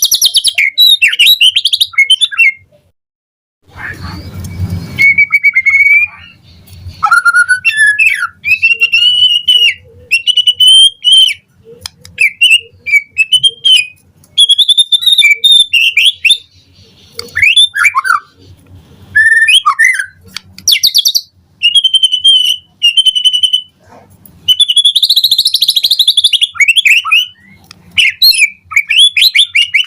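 White-rumped shama (murai batu) singing at full volume: a run of loud whistled phrases, quick rising and falling notes and high trills, broken by short pauses. A brief burst of noise comes about four seconds in.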